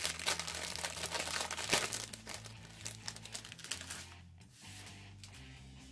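Mystery envelope being torn open and its contents handled, with crinkling and rustling that are busiest for the first three seconds or so and then die down.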